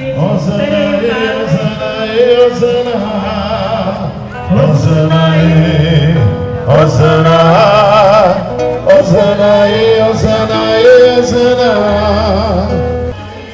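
A religious song sung over instrumental backing: a voice holding long notes with vibrato above steady low notes. It drops away sharply near the end.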